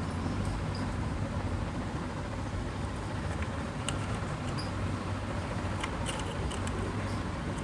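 Ceiling fan motor running on its newly wired 2.5 µF run capacitor, a steady low hum with a few faint ticks. It is turning in the right direction, the sign that the capacitor is wired correctly.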